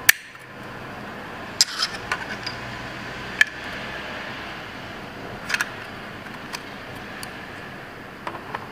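Sharp plastic clicks and snaps, scattered and irregular, as the Wi-Fi water leak detector's plastic housing is fitted and twisted shut by hand.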